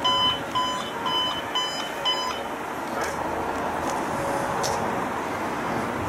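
Electronic beeper sounding short high beeps about twice a second, stopping about two and a half seconds in; after that only steady background street noise.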